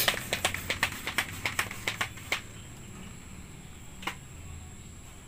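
A rapid run of light, sharp clicks from hands working the PVC toy gun and its scope mount, slowing and stopping a little over two seconds in, then one more click near 4 seconds.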